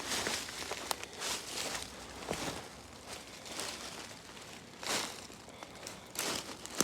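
Footsteps of a person climbing down a slope through leaves and brush: irregular rustling and crunching with a few small sharp snaps.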